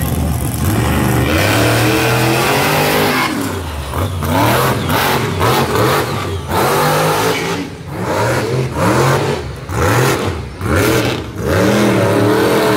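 Monster truck engine revving hard, its pitch climbing and falling over and over as the throttle is opened and briefly lifted during a freestyle run on dirt.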